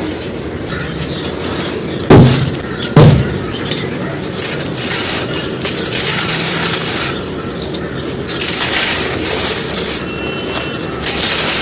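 Dry moulded black sand shapes crumbling and breaking apart in gritty, crispy crunching, with two sharp cracks about two and three seconds in.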